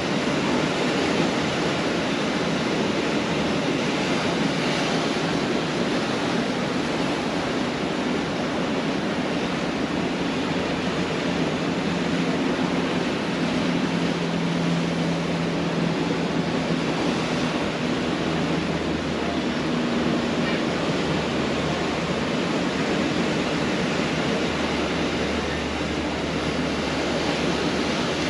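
Pacific Ocean surf breaking steadily on a beach, a continuous wash of waves. A faint low hum rises under it from about ten seconds in.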